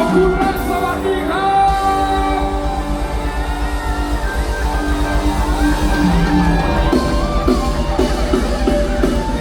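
Live mor lam band music: a sung melody over a fast, steady drum-and-bass beat, loud and echoing.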